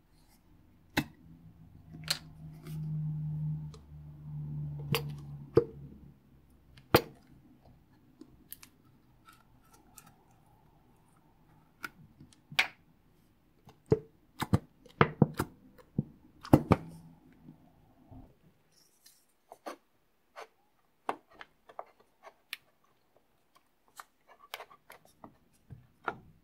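Sharp clicks and taps of a plastic bottle being handled: its flip-top cap is snapped open, then the bottle is squeezed and tapped while a thick silver liquid pours into a plastic bowl. A low hum runs for a few seconds about two seconds in.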